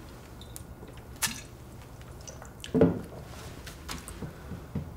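Beer being swigged from glass bottles: quiet drinking sounds with a few small sharp clicks, the loudest just under three seconds in.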